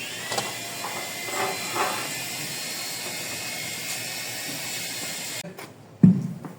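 Power saw cutting tile, running with a steady hiss and a thin motor whine, then cutting off abruptly. A short, loud low thump follows near the end.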